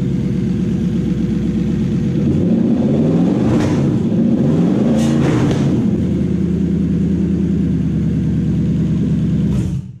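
Toyota 1UZ-FE quad-cam V8 running on a newly wired Link Monsoon ECU: it idles steadily, is blipped on the throttle a few times in the middle so the revs rise and fall, then settles back to idle before the sound cuts off suddenly near the end.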